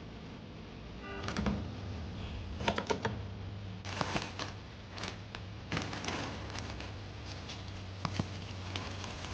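Groceries and containers being handled and put away in a fridge: irregular clicks, knocks and short bursts of rustling packaging, over a low steady hum.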